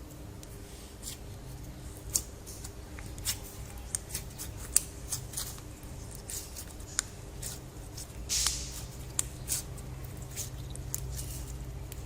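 Slime being worked by hand, giving irregular sticky clicks and pops, with a longer squelch about eight seconds in, over a steady low hum.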